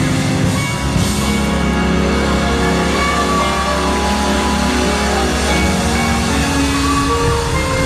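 Live band music led by an electronic keyboard, a Yamaha MX88, playing held chords over a long, low sustained bass note that stops a little past the middle.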